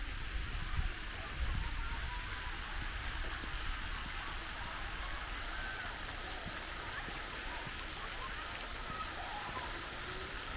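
Garden fountain jets splashing into a stone pool, a steady rushing patter of falling water, with a few low thumps in the first two seconds.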